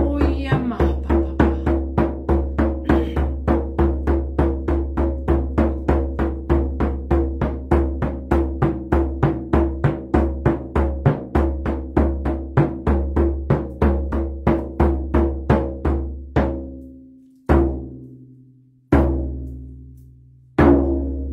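Large hide frame drum beaten with a padded beater in a steady beat of about three strokes a second. About two thirds of the way in, the beat slows to three single strikes, each left to ring out.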